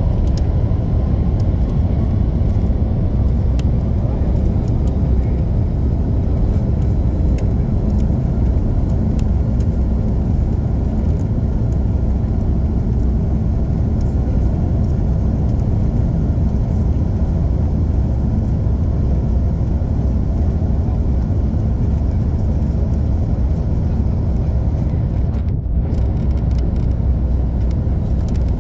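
Steady low rumble inside the cabin of an Airbus A330 airliner taxiing: jet engines at low thrust and the rolling of the gear, with no spool-up to takeoff power.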